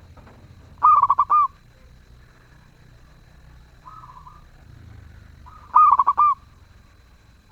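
Zebra dove (perkutut) singing: two phrases of about five quick, clipped cooing notes, one about a second in and one near six seconds, with a single faint note in between.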